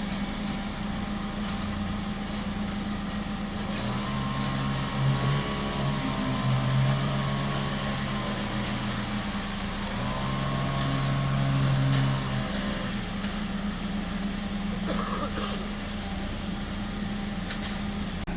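An engine running steadily with a constant hum. It works harder twice, its pitch rising and bending for a few seconds each time, about four seconds in and again about ten seconds in.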